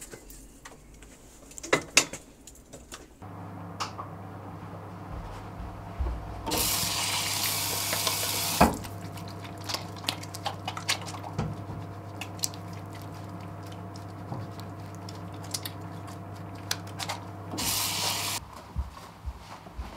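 A tap runs into a bathroom sink while hands are washed under it, with splashing and a steady low hum. There are two louder rushes of water, the longer one about six to eight and a half seconds in and the other just before the water stops. A couple of knocks come before the tap is turned on.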